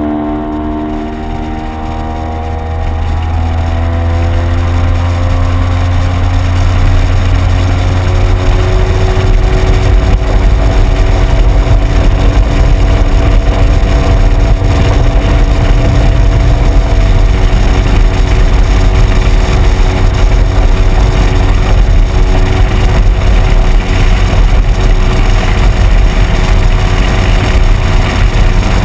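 Speedboat engine running at speed, its pitch rising briefly at the start and then holding steady, under a loud rush of wind and water that grows over the first ten seconds.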